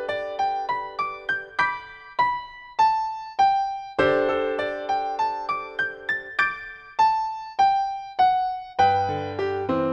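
Solo piano playing a slow ballad accompaniment with the melody on top: single notes struck one after another, each fading, over held chords, with low bass notes coming in near the end.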